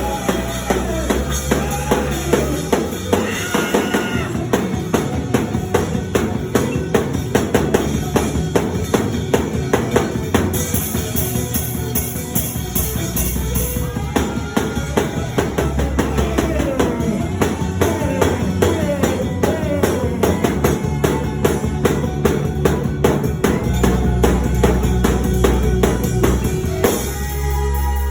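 Live band music with a drum kit playing dense, rapid, steady snare and kick hits over sustained bass notes.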